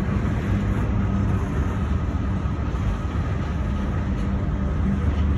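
CSX freight train with diesel locomotives and empty coal hopper cars rolling on the rails: a steady low rumble.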